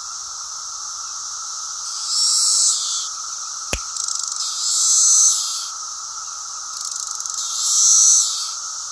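Chorus of cicadas droning steadily, with a nearby male cicada calling in three swelling buzzes, each about a second long and a few seconds apart. One sharp snap about a third of the way in: a finger snap imitating the female's wing click.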